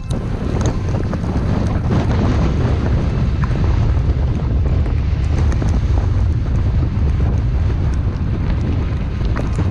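Wind blowing across the microphone: a loud, steady low rumble with a rush of wind above it.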